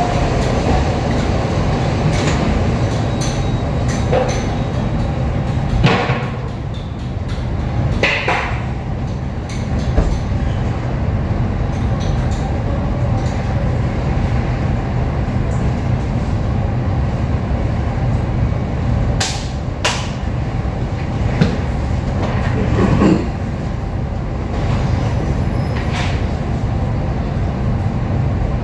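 Steady low mechanical rumble of room machinery, with a few scattered light knocks and clicks.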